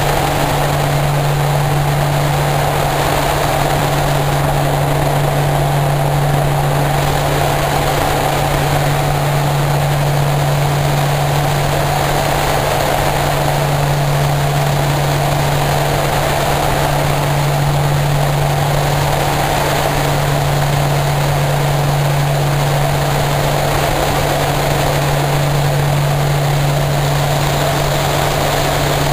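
Short Skyvan's twin turboprop engines and propellers droning steadily, heard from inside the cockpit during the steep descent after the skydivers' exit. A strong low hum swells and fades gently every few seconds over a rushing noise.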